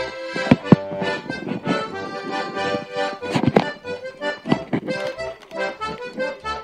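Background music, a melody of quick notes, with a few sharp clicks, the loudest less than a second in.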